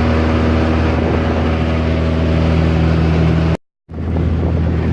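Car engine and road noise heard from inside the cabin while driving at a steady speed, a constant low drone. It cuts out abruptly for a moment about three and a half seconds in, then returns with more wind noise.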